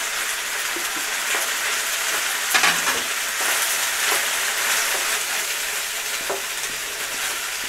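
Macaroni, vegetables and spices sizzling in a hot frying pan while a wooden spatula stirs them, a steady frying hiss with a few short knocks of the spatula.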